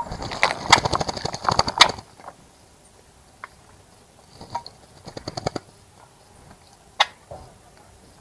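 A small bird bathing, splashing and fluttering its wings in the water of a bird bath. It comes in two quick bouts, the first about two seconds long and a shorter one in the middle, with a single splash near the end.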